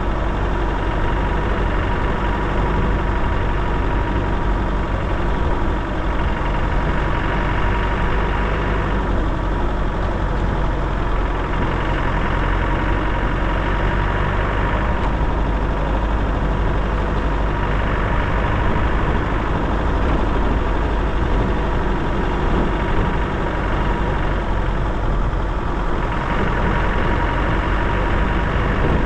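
A car's engine running steadily while it drives slowly along a rough track, with a continuous low rumble and a faint steady high whine.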